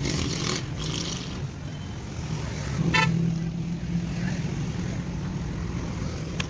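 Street traffic running with a steady low hum, and a short car horn toot about three seconds in.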